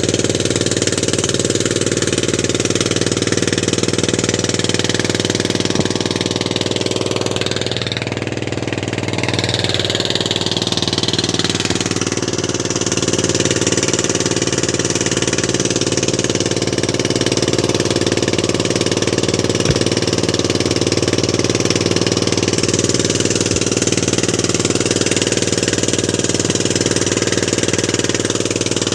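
Outrigger fishing boat's engine running steadily, with a slight dip in level about eight seconds in.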